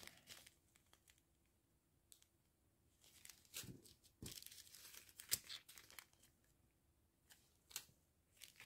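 Faint, intermittent crinkling and rustling of thin plastic: small zip bags of diamond-painting drills and their clear wrapping being handled, with a few light clicks near the end.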